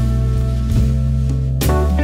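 Instrumental background music: sustained pitched notes over a steady bass line, with a sharp hit near the end.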